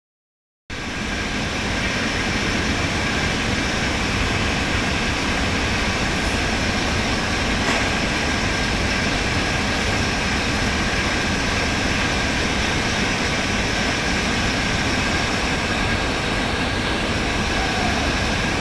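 TIG (argon) welding arc running with a steady hiss and a thin, constant high tone. It cuts in abruptly just under a second in and holds level throughout.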